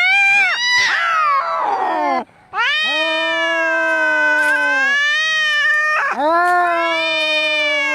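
Angry cat caterwauling: long, drawn-out yowls, each held for about three seconds with a slowly wavering pitch. A harsh, rasping cry comes about a second in. These are the threatening cries of a cat fight.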